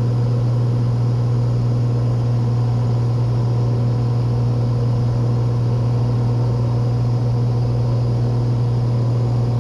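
Cessna 182 Skylane's piston engine and propeller droning steadily in flight, a constant low hum with no change in pitch or level.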